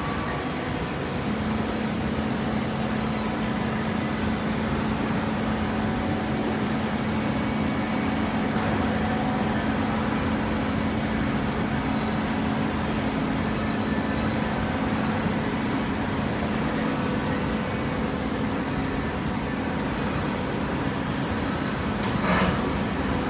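Automatic horizontal hydraulic baler running: steady industrial machine noise with a steady hum, and one short clank near the end.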